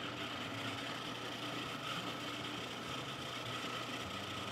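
Electric food processor running steadily, its motor humming as it grinds soaked almonds, peanuts and dates into a paste.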